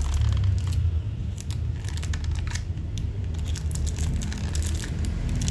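Crinkling and rustling of a new Zippo lighter's packaging being handled, with many small scattered clicks and scratches.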